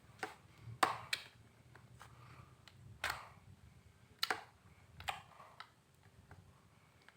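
Homemade clay slime being squeezed and worked by hand, giving off sharp clicks and small pops about six times at irregular intervals.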